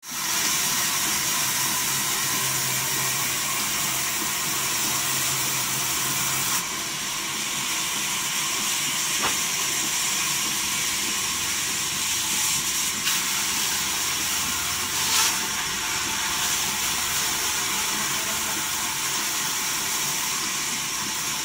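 Sawmill band saw running and cutting through timber: a steady high hiss of the blade in the wood.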